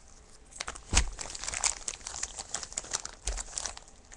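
Ziploc plastic zipper bag crinkling as it is handled, with a loud knock about a second in and a low thump a little past three seconds.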